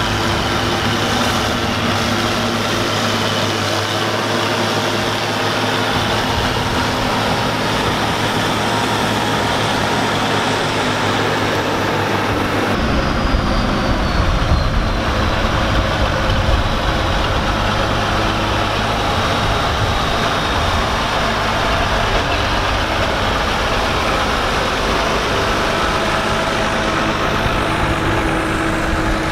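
Allis-Chalmers 190XT tractor engine running steadily under load while it drives a Gehl 750 forage harvester chopping standing corn for silage. About 13 seconds in the sound changes abruptly to a tractor driving past, towing the harvester and a forage wagon, with a heavier low rumble.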